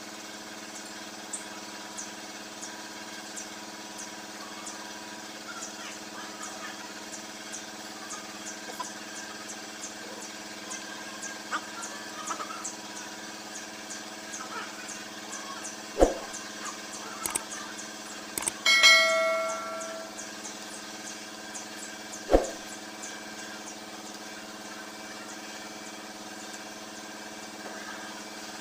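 Steady machine hum with a faint high ticking about twice a second. About sixteen seconds in comes a sharp metal knock, then a metal clang that rings for over a second, and a few seconds later another sharp knock.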